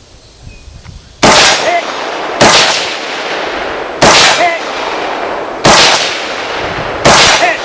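Five shots from an AR-15-style 5.56 mm rifle, spaced about a second to a second and a half apart, each with a long echoing tail. After several of the shots a faint ring follows about half a second later: a hit on a steel silhouette target.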